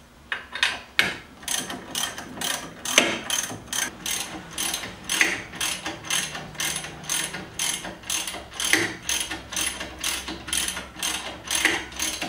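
Hand ratchet wrench clicking as it runs the front brake caliper mounting bolts of a C7 Corvette in snug, a steady series of sharp ratcheting clicks at about three a second.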